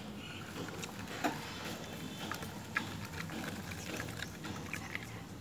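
Faint scattered clicks and taps from a plastic cup and drinking straw being handled on a countertop, over a low steady background noise.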